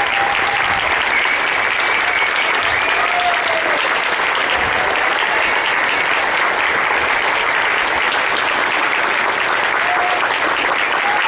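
Theatre audience applauding steadily after a musical number, with a few cheering voices.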